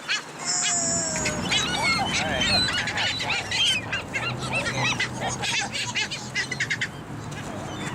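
A flock of geese honking, with many short calls overlapping throughout.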